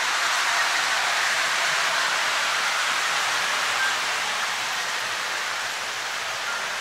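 A steady, even rushing hiss with no distinct events, easing slightly after about four seconds.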